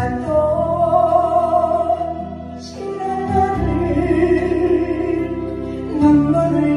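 A woman singing a Korean gospel hymn over a backing track, holding long notes with vibrato.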